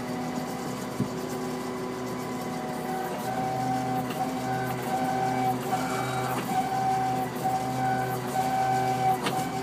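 A car's steering making an abnormal noise: a steady mechanical hum with a pitched groan that comes and goes about once a second.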